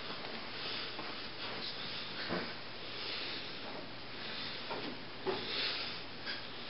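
Steady low hiss of room tone with a few faint rustles and soft bumps, about two seconds in and again near the end.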